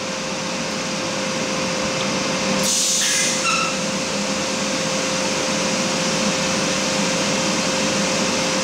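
Eastwood Elite 200 AC/DC TIG welder's arc running on the bow roller, a steady hiss with a constant whine underneath. A brief sharper hiss comes about three seconds in.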